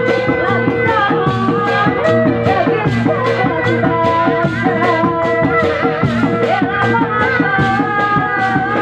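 Loud live Sundanese bangreng music: drums keep a fast, even beat under a wavering melody line and long held notes.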